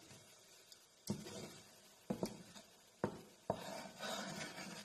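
Wooden spatula stirring seasoning into hot water in a nonstick frying pan: four light knocks against the pan, then scraping over the pan's bottom near the end.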